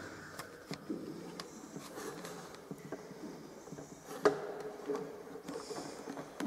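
Scattered faint clicks and knocks echoing in a brick-lined tunnel, the sharpest a single knock about four seconds in, with a brief hiss near the end.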